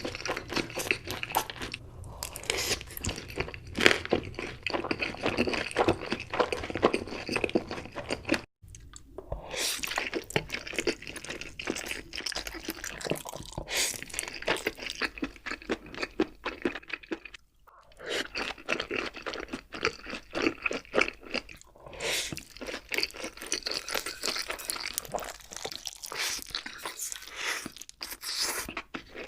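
Close-miked crunchy chewing and biting, a dense run of crisp crackles, broken off briefly twice where the audio cuts.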